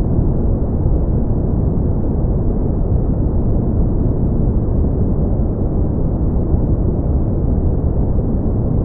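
Brown noise: a steady, deep rushing hiss, strongest in the bass and fading out toward the treble, with no changes.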